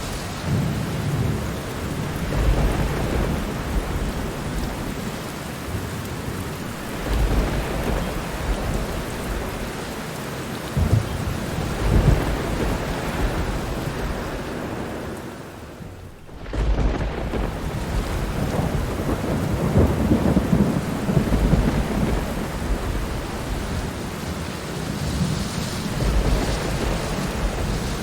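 Steady heavy rain falling, with low thunder rumbling and swelling several times. The sound drops briefly a little past halfway, then comes back.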